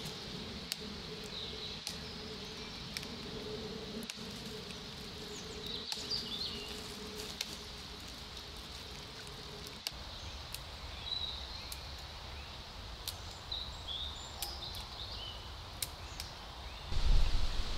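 Dry dead twigs snapping with sharp little cracks now and then as they are broken by hand, over quiet forest ambience with faint bird chirps. A louder rustle of branches comes near the end.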